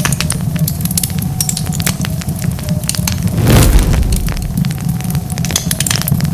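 Wood fire crackling, with many sharp pops and snaps over a steady low rumble. About halfway through comes a louder rushing burst lasting about half a second.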